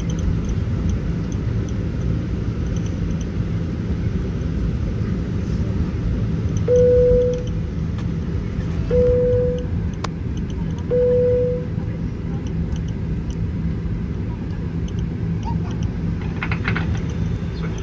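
Steady low cabin rumble of a Boeing 737-900 airliner in flight, with three identical short chime tones about two seconds apart near the middle, each under a second long.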